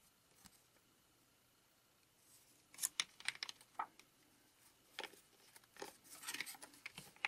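1982 Donruss baseball cards being handled: stiff card stock sliding and tapping against other cards and a stack, as faint clicks and rustles in two short clusters, about three seconds in and again from about five seconds in.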